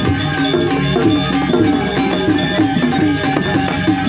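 Balinese gamelan music playing steadily, with many ringing metallic notes and a running melody line.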